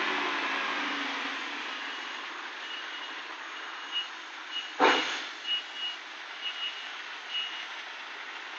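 Container truck idling with its reversing alarm giving short high beeps, irregularly spaced, from a few seconds in. The engine noise fades early on, and a brief loud burst of noise comes about halfway through.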